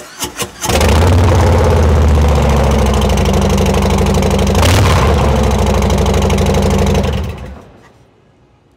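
Harley-Davidson Fat Boy's Milwaukee-Eight 114 V-twin started through TAB Performance 3.5-inch slip-on mufflers with Zombie baffles: a few quick starter cranks, then it catches and idles loudly, with one short throttle blip around the middle. It is shut off near the end and runs down.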